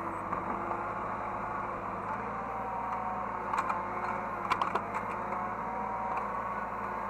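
Hydraulic excavator heard from the operator's cab: the engine runs steadily under a whine that slowly rises and falls as the machine works, with a few sharp knocks a little past the middle.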